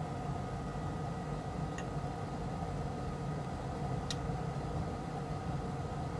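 Steady low hum and hiss of running equipment in the room, with two faint ticks about two seconds apart.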